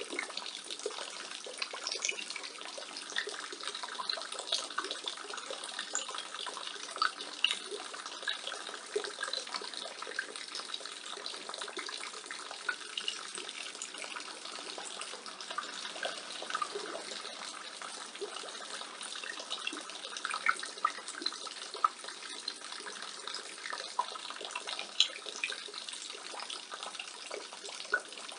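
Rainwater falling from a roof gutter and splashing steadily, with many small irregular drips and splats over a continuous watery patter.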